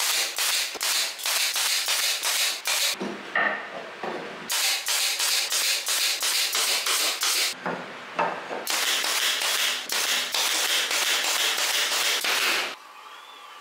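Pneumatic air stapler fired in quick succession into wooden planks, about three or four sharp shots a second in several runs. Near the end it gives way to a denser, steadier stretch as a cordless drill drives screws into the planks, then the noise stops abruptly.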